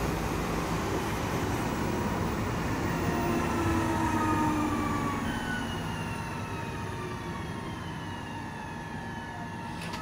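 Electric multiple unit train moving away along the platform, with a rumble of wheels on rail and a whining tone from its motors that slowly falls in pitch. It fades from about halfway through.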